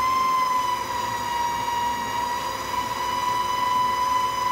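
Electric stand mixer running at a steady speed, its motor giving an even, high whine.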